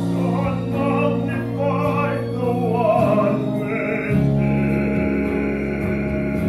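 Male vocal quartet singing a cappella in a classical choral style. Low voices hold sustained notes while a higher voice carries a moving, wavering melody, and the group moves to a new held chord about four seconds in.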